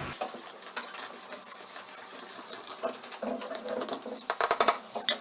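A spoon stirring glue and food colouring in a container, making fast, irregular clicking and scraping, with a louder flurry of strokes about four and a half seconds in.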